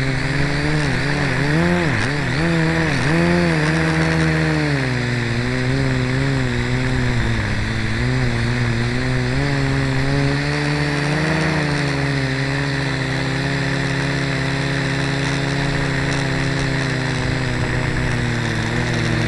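Blade mQX micro quadcopter's four electric motors and propellers running, heard from a camera riding on the craft: a steady whine whose pitch wavers up and down over the first few seconds as the motors speed up and slow down to steer, then holds steadier.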